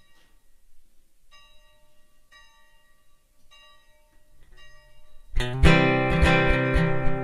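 Instrumental prelude music: four soft single notes about a second apart, then strummed acoustic guitar comes in loudly about five seconds in.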